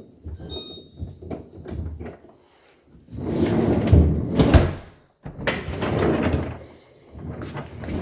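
Large freezer drawer of an LG French door refrigerator being rolled in and out on its rail and double-gear glide, twice, after a few light knocks. It is being run on the newly refastened glide bar, and it rolls smoothly.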